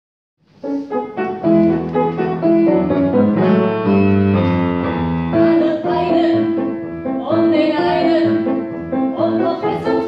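Grand piano playing, starting about half a second in, joined about halfway through by a woman singing with held notes over the accompaniment.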